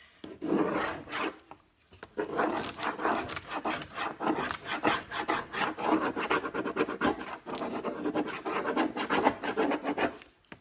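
Fast back-and-forth scratchy rubbing of a hand tool on the chalk-painted surface of a fireplace screen, as a rub-on transfer is burnished down or the paint is rubbed back. There is a short spell, a brief pause about two seconds in, then a long steady spell that stops just before the end.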